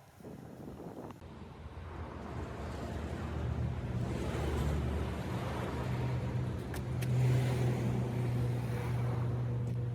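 A motor vehicle engine running with a low steady hum, getting louder over the first few seconds.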